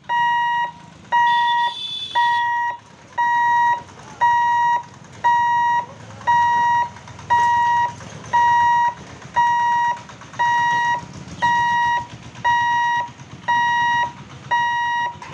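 Railway level-crossing warning hooter beeping about once a second, each beep a steady tone about half a second long, signalling that the gate barriers are closing for an approaching train. A brief higher-pitched tone sounds about two seconds in, over a low rumble of road traffic.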